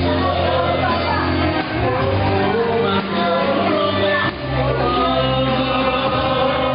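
Music with singing and sustained bass notes.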